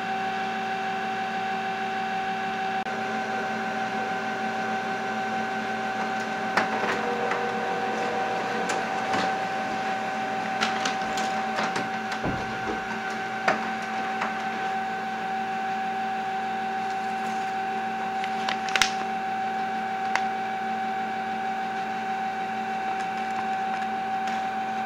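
HP Color LaserJet CP2025dn laser printer running off a test page: a steady whine and hum of its motors, with scattered short clicks and ticks from the paper feed.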